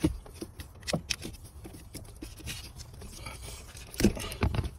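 Hands handling a truck's wiring harness and plastic connectors under the dash: scraping and rubbing with scattered small clicks. Sharper knocks come right at the start and again about four seconds in.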